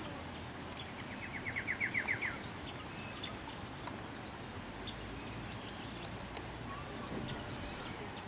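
Outdoor ambience of a steady high insect drone. About a second in there is a short, rapid run of about eight chirps, and a few faint ticks are scattered through.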